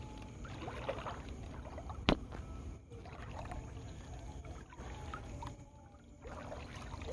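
Shallow backwater water sloshing and lapping, with one sharp click about two seconds in.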